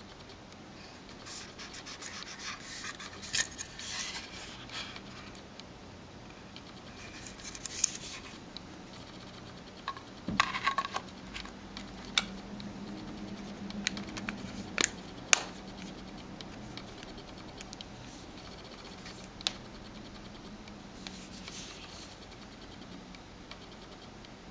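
Handling noise from an HTC Sensation 4G smartphone: its back cover scrapes and rubs against the body as it is fitted over the battery, with a series of sharp clicks as it snaps into place and as the phone is handled.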